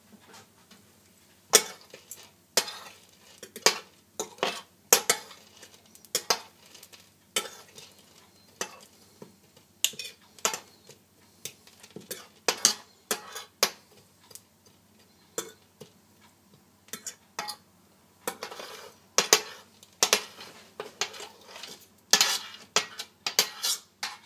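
Sunflower seeds being stirred with a spoon in a dish: irregular sharp clinks and scrapes of metal on the dish, roughly one a second, with a few longer rattling scrapes near the end.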